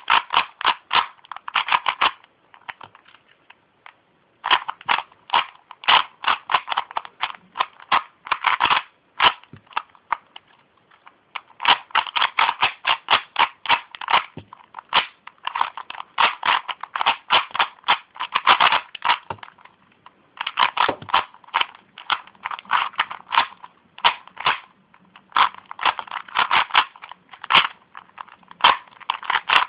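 Rubik's cube, a DIY kit cube, being turned fast by hand: rapid plastic clacking of the layers in runs of many turns, broken by short pauses about two and ten seconds in.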